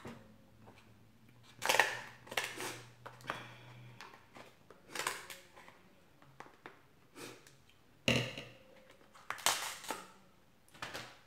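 Scissors cutting through the shell of a cooked king crab leg, with the shell cracking: irregular crunching snips and cracks every second or two.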